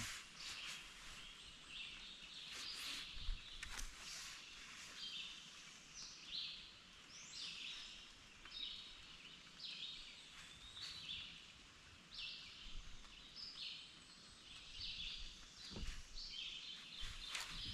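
Birds calling repeatedly in short, high-pitched chirping phrases about once or twice a second, faint over quiet outdoor background noise, with a few scattered light clicks.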